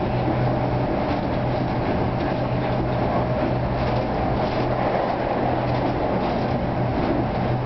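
Detroit Metro Airport people-mover tram running along its guideway, heard from inside the car: a steady rumble with a constant low hum and a fainter, higher steady tone.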